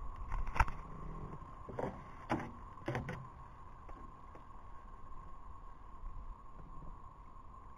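A few hollow knocks and thumps in an aluminum jon boat, four of them in the first three seconds, over a faint steady tone.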